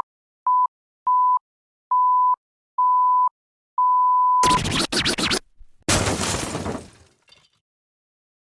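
Intro sound effect: six electronic beeps at one pitch, each longer than the last, then two loud crashing, shattering noises, the second fading out over about a second.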